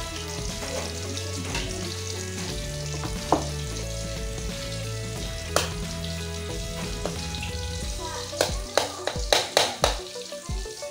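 Food sizzling as it fries in a pan while being stirred, with a quick run of about six knocks of a utensil against the pan near the end. Steady background music plays underneath.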